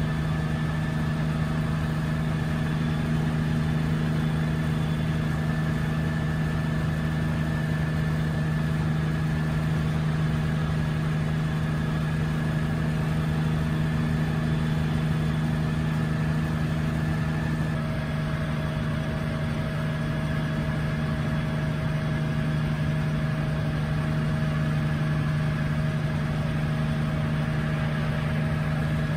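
1962 Hiller UH-12E helicopter in low-level flight, heard from inside the cabin: its Lycoming VO-540 piston engine and rotor run steadily at a constant drone. Its tone shifts slightly about two-thirds of the way through.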